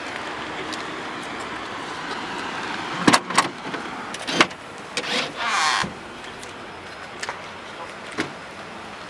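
The split tailgate of a 2006 Range Rover being opened. About three seconds in there are two sharp latch clicks, then a clunk, then a rushing sound about a second long as the hatch goes up. A few lighter clicks follow as the lower tailgate is let down.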